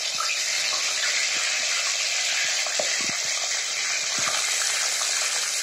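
Marinated fish pieces sizzling steadily in hot mustard oil in a kadai, with a few short pops.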